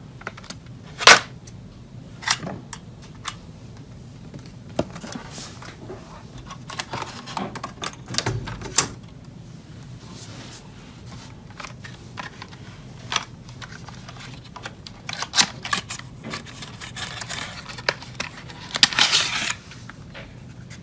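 Hand-handling noises from PC parts: a string of irregular sharp clicks and knocks, the strongest about a second in. Near the end comes a short burst of crackly rattling from the CPU's clear plastic clamshell case being handled.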